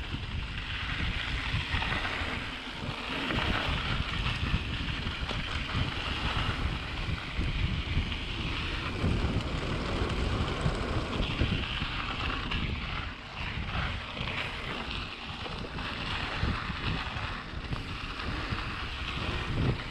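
Wind buffeting the microphone of a handlebar-mounted camera on a moving mountain bike, over the rough, irregular rumble of its tyres rolling down a dirt trail and across a wooden boardwalk about halfway through.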